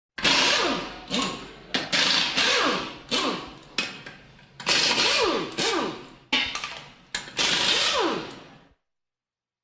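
Pneumatic air wrench fired in about six short bursts, each starting abruptly with a rattling buzz and then winding down with a falling whine.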